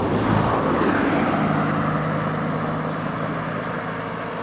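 A car driving past, loudest about half a second in and then fading away, with a steady low engine hum.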